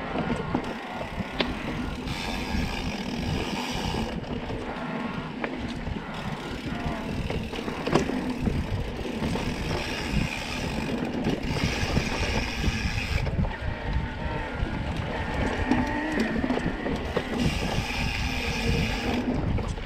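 Mountain bike riding over a dirt singletrack: wind buffeting the microphone and the tyres rumbling on the trail, with the bike rattling and one sharp knock about eight seconds in.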